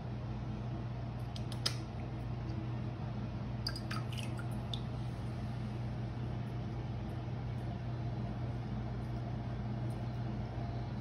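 A few faint small taps and drips in the first five seconds as a cat paws at the water in its ceramic bowl, over a steady low room hum.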